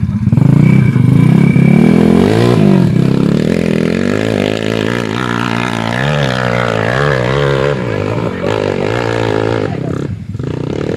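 Dirt bike engine revving hard under load on a steep hill climb, loudest at the launch in the first few seconds, then its pitch rising and falling over and over with the throttle.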